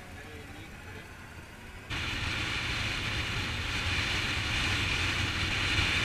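Faint roadside sound, then about two seconds in a sudden cut to the steady rush of wind and a Bajaj Pulsar motorcycle's engine riding at speed, heard through a camera mounted on the bike.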